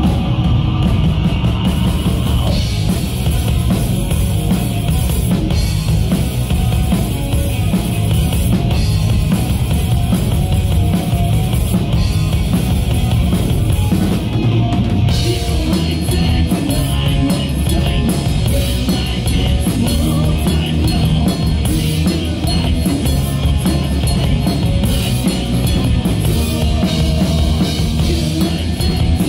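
Live rock band playing loudly: distorted electric guitars, bass guitar and a full drum kit.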